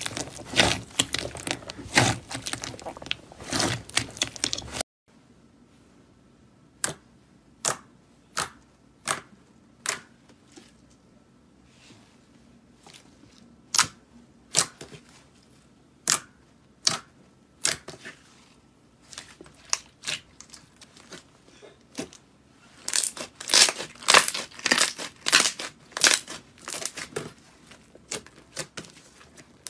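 Slime squeezed and pressed by hand, crackling and popping. A dense run of crackles stops abruptly about five seconds in; then come single sharp pops under a second apart, and near the end a dense crackling run again.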